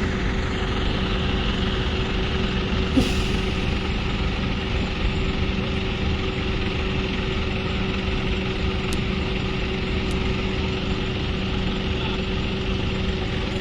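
Heavy truck engine idling steadily, with a brief knock about three seconds in.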